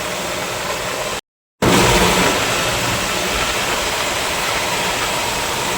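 New Holland 3630 tractor's three-cylinder diesel engine running steadily while the tractor is driven. The sound cuts out completely for a moment about a second in, then comes back slightly louder.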